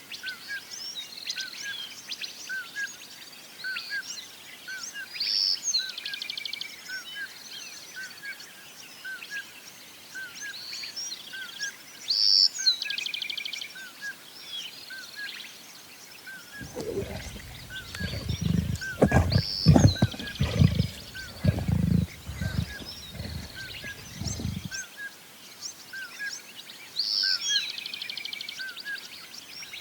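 Lion roaring: a series of deep roars over about eight seconds in the middle, loudest near the start of the series. Birdsong runs underneath, with a steady string of short repeated chirps and brighter song phrases.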